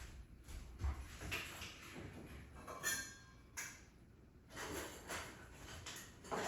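Handling noise: backpack fabric rustling, with a brief louder scrape about three seconds in and a few light knocks, as a stainless steel water bottle is fitted into the pack.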